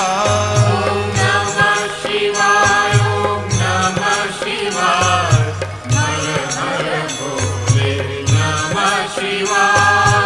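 Devotional mantra chant music: a voice sings a mantra over a low, repeating rhythmic pattern, with light jingling percussion.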